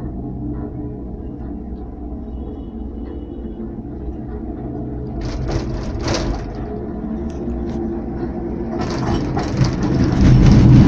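Interior rumble of a moving road vehicle, its engine running steadily under rattling from the cabin and window. Bursts of rattle come about five seconds in, and the noise grows much louder near the end.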